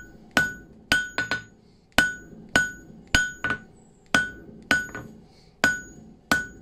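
Hand hammer striking a red-hot 10 mm steel round bar on an anvil, drawing out a long taper: about a dozen blows at roughly two a second, a few in quick pairs, each with a short metallic ring from the anvil.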